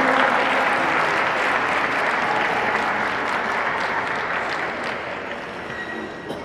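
Audience applauding after a figure skating program, the applause gradually dying away.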